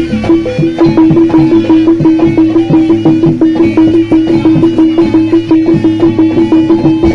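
Live jaranan (kuda lumping) ensemble music: one pitched percussion note struck over and over, about four or five times a second, over drum strokes and other instrument parts.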